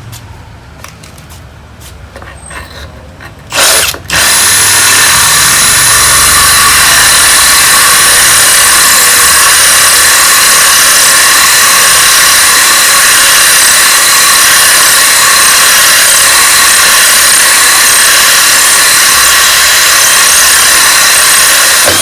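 Power drill boring into a piece of stone with a water-cooled Heuler stone bit: a short burst about three and a half seconds in, then the drill runs loud and steady at full speed, a high whine over a grinding hiss.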